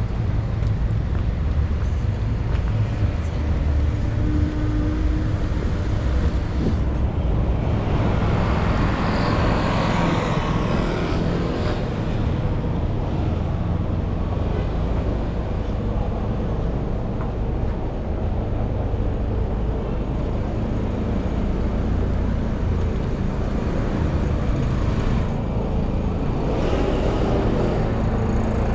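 City street traffic: a steady rumble of engines, with a vehicle passing about eight seconds in and another near the end.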